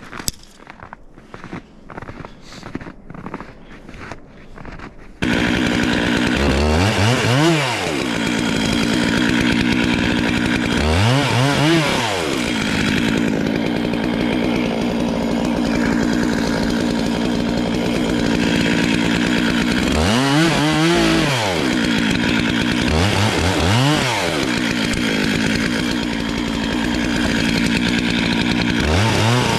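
About five seconds of crunching steps, then a Stihl MS 441 two-stroke chainsaw cuts in abruptly and runs loud. Its revs climb and drop back five times, each rise and fall lasting a second or two.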